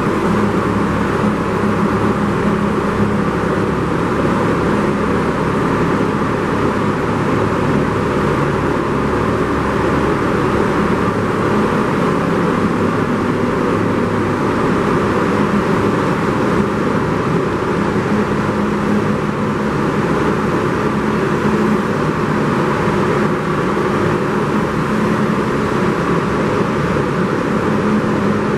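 New York City subway train running at speed: a loud, steady roar of wheels on rail with a low motor hum, unchanging throughout.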